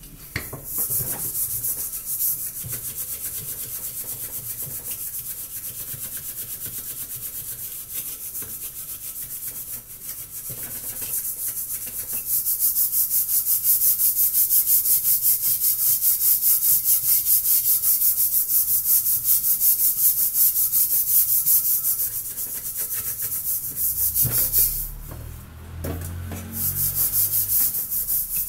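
A stainless steel pot being scrubbed by hand, its blackened outside and bottom scoured in quick, even back-and-forth strokes, about two or three a second. Near the end the scrubbing stops briefly with a low bump as the pot is shifted, then starts again.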